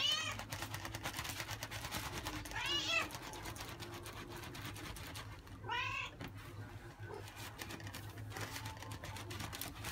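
A grey-and-white house cat meowing three times, about three seconds apart, each cry rising and falling in pitch: a cat begging for food.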